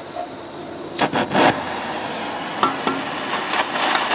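Hand-held propane torch being lit and set in place: a few sharp clicks and clanks about a second in, then the steady hiss of the burning gas, which grows louder near the end as the flame heats a seized brake bleeder.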